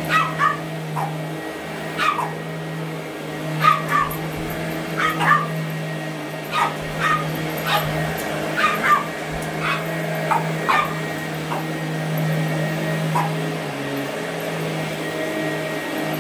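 A Boston terrier gives short, high-pitched barks and yips, over and over, at a running upright vacuum cleaner. The vacuum's motor hums steadily underneath.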